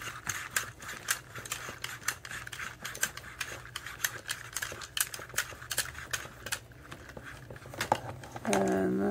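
Hard plastic clicking and rattling of a Transformers Bumblebee action figure's parts as they are handled and fitted together, many small clicks in quick succession. Near the end a person's voice sounds briefly.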